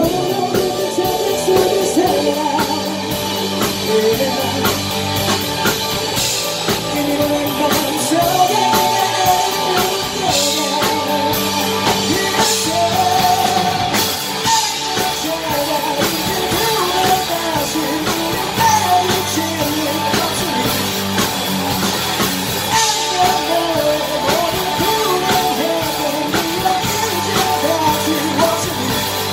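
Indie rock band playing live: a male vocalist singing over electric guitars, electric bass and a drum kit.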